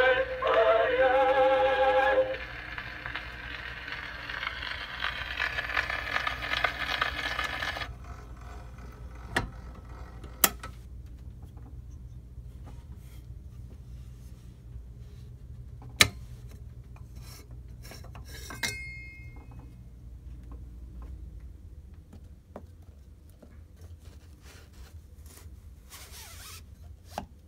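Edison Amberola 30 cylinder phonograph: the last notes of a recorded song end about two seconds in, then the reproducer hisses on the cylinder's blank run-out until about eight seconds in. A few sharp clicks follow from the machine being handled, then a rubbing scrape near the end as the blue Amberol cylinder is slid into its cardboard case.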